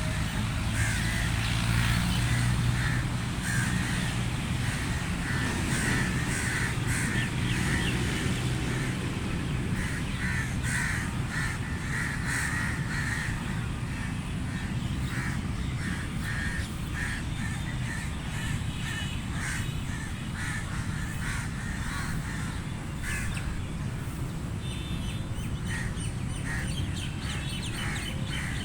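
Several crows cawing repeatedly in overlapping calls while feeding. A steady low rumble runs underneath, strongest in the first few seconds.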